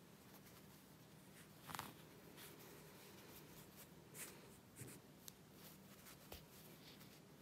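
Faint scratchy rustling of embroidery floss and a needle being pulled through a knitted doll's head, a few short pulls and a small click.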